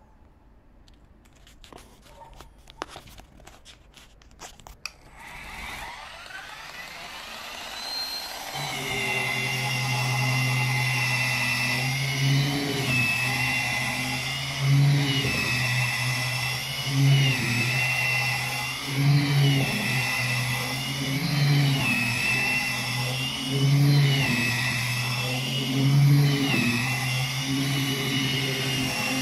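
Worx WG441E cordless 20 V multibrush: a few handling clicks, then its motor spins up about six seconds in and runs with a steady hum. The rotating brush scrubs wet decking boards, and the pitch dips and recovers about every two seconds as the load changes.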